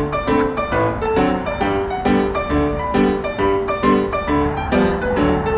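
Background piano music, a gentle pattern of notes struck in an even rhythm, about two a second.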